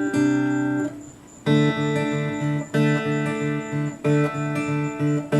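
Guitar playing an instrumental passage with no singing: a held chord dies away about a second in, then a steady, evenly repeating picked or strummed pattern starts up.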